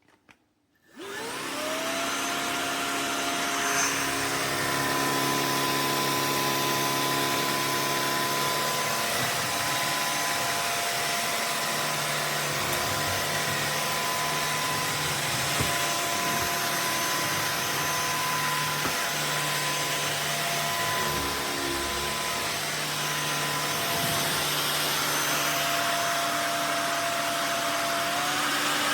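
Cordless stick vacuum switched on about a second in, the motor spinning up with a rising whine, then running steadily with a high whine over a rushing airflow hiss.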